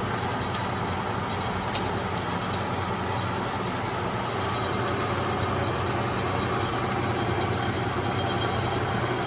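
Kearney & Trecker Model 2K horizontal milling machine running under power with the table on power feed. The gear drive gives a steady hum with a high whine over it.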